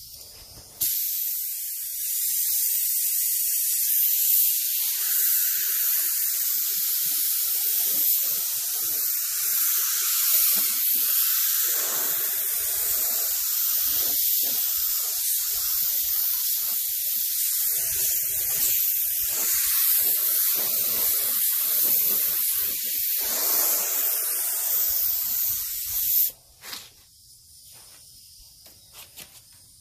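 Gravity-feed paint spray gun spraying a coat of paint, run at low air pressure: a loud, steady hiss of air and atomised paint that starts suddenly about a second in and cuts off near the end when the trigger is released.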